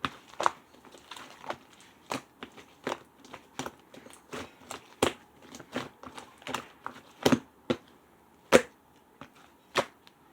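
Slime being pressed and squeezed by hand, giving sharp clicking pops at irregular intervals as air pockets burst, with a few louder pops in the second half.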